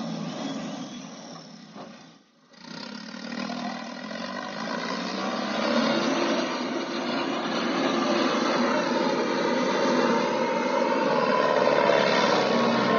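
John Deere W70 combine harvester's diesel engine running as the machine drives across the field, growing louder as it comes closer. The sound cuts out briefly about two seconds in.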